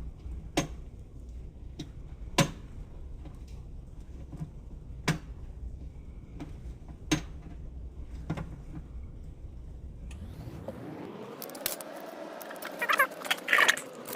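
Metal parts of a home-built rotisserie motor box being handled and fitted: sharp clicks and knocks every second or two. From about ten seconds in there is a rising then falling tone, with a run of quick clinks and rattles near the end.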